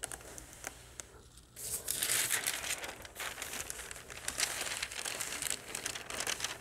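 Parchment paper crinkling as it is handled and an iron is slid across it on the fabric, starting about a second and a half in.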